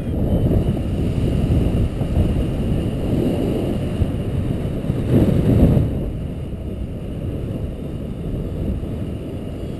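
Wind rushing over the microphone of a camera on a paraglider in flight, a steady low rush that swells briefly about five seconds in.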